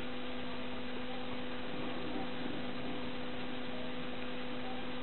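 Steady electrical hum, two constant tones over an even hiss, with a faint murmur of voices about two seconds in.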